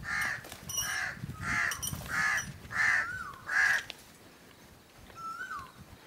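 A crow cawing: six harsh caws about two-thirds of a second apart, stopping a little before the four-second mark. Two short, faint falling whistles follow, one about three seconds in and one near the end.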